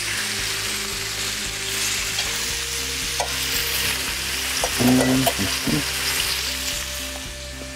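Chicken thighs sizzling in a hot frying pan, a steady hiss, with a few knocks of metal tongs against the pan about five seconds in as the pieces are turned.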